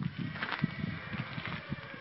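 Footsteps crunching on a gravel and dirt yard: a run of irregular short steps.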